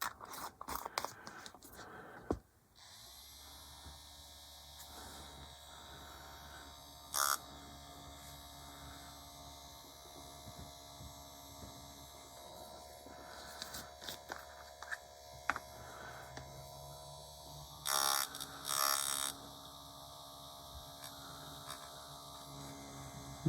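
Dspiae electric paint mixer running with a steady hum, starting about three seconds in after a few clicks of handling. Two brief louder clattering noises break in, one about a third of the way through and one near the end.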